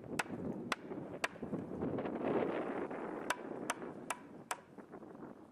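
Rubber mallet tapping a log leg-and-arm assembly onto the seat's wooden tenons of a log rocking chair: seven sharp knocks, three in the first second and a half and four more about half a second apart after a pause, over a rustling handling noise.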